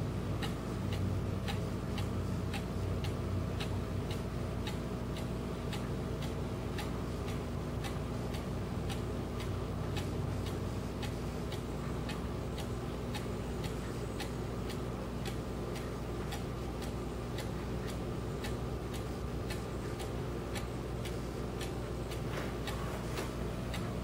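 German cuckoo clock's movement ticking steadily, about two ticks a second, over a low steady hum.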